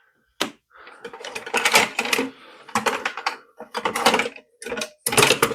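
Small metal tools and odd parts clinking and clattering as they are rummaged through and handled in a metal toolbox. There is a quick, uneven run of clicks and rattles with brief pauses.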